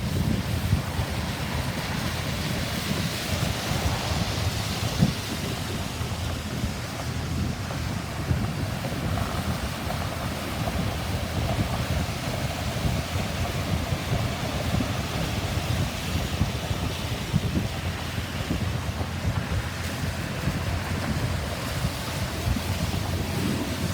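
Wind buffeting the microphone in uneven gusts over a steady rushing noise.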